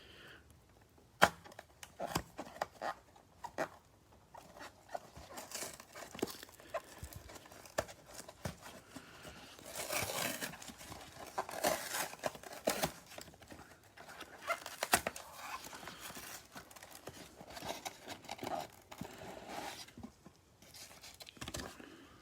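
Cardboard hanger box of trading cards being torn open by hand, with irregular tearing, crinkling and rustling broken by sharp clicks and snaps; the handling is busiest about halfway through.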